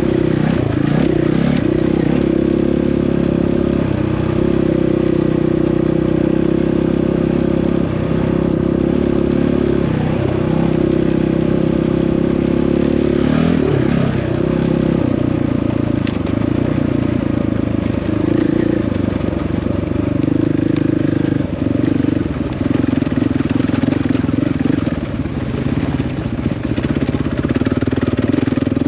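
Dirt bike engine running under load, its pitch briefly dipping and rising again several times as the throttle is rolled off and on. In the second half the note steadies and pulses up and down every second or two.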